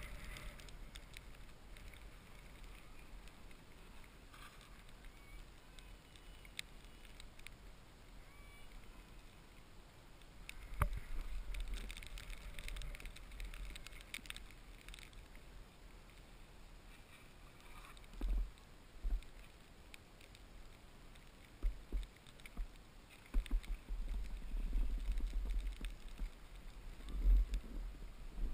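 A rider's edges hissing and scraping over snow, loudest between about 11 and 15 seconds in, with wind buffeting the microphone in gusts, heaviest over the last few seconds.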